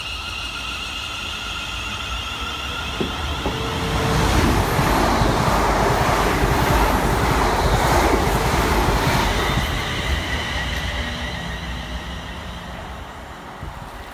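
London Northwestern Railway Class 350 Desiro electric multiple unit moving away along the platform. A steady high whine is heard at first. Then the rumble of wheels on rails swells for several seconds and fades as the last carriages draw away.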